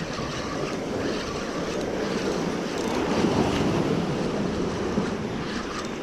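Ocean surf breaking and washing over shoreline rocks, swelling to its loudest a few seconds in, with wind buffeting the microphone.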